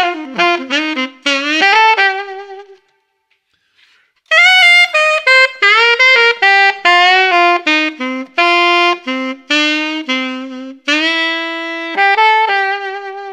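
Solo alto saxophone playing a bluesy jazz lick in two phrases. The first is a falling run that ends a couple of seconds in with an upward scoop. After a short gap comes a longer run of quick notes ending on a held note. The line is built on the minor blues scale and resolves by scooping into the major third, then lands on the fifth rather than the root.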